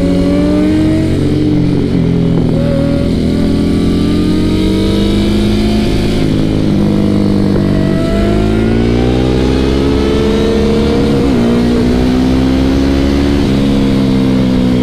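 Motorcycle engines accelerating through the gears, heard from a Ducati Hypermotard's seat with a sports bike close ahead. The pitch climbs in each gear and drops back at the upshifts, about 2, 8, 11 and 13 seconds in.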